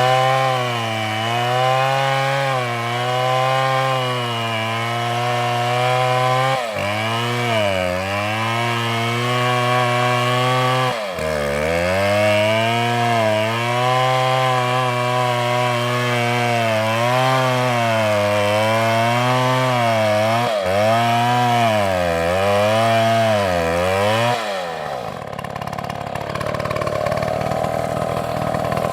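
Two-stroke chainsaw running at high revs while cutting wood. Its engine note repeatedly dips in pitch and recovers as the chain is loaded in the cut. About 24 seconds in, the steady engine note gives way to a rougher, quieter sound.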